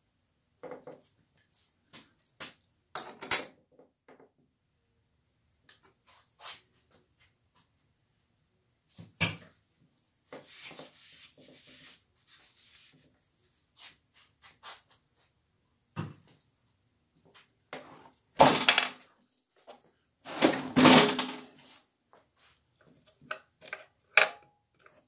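Scattered clinks and knocks of metal tools and parts against a Fordomatic two-speed automatic transmission case on a cardboard-covered cart. The loudest sounds are a heavy knock a little past the middle and a longer clatter and scrape soon after, as the transmission case is turned over.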